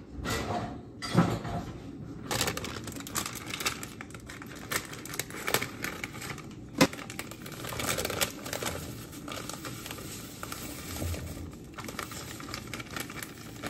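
Clicks, knocks and crinkling of kitchen handling: a plastic bag of muffin mix rustled and cut open with scissors, with one sharp click about seven seconds in.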